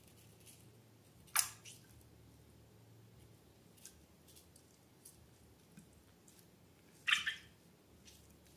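Slime being handled: two sharp, sticky pops, one about a second and a half in and a double one near the end, with faint small clicks between.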